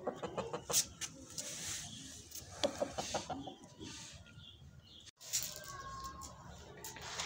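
Rooster clucking in short low calls, mixed with scattered sharp clicks and rustling.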